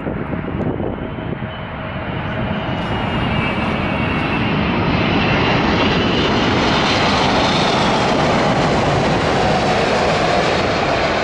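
An airliner's engines passing close by, growing louder over the first few seconds and then holding loud and steady, with a faint whine that slides slowly in pitch.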